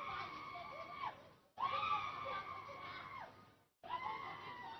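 A person screaming: three long, high-pitched held cries, each breaking off with a falling pitch.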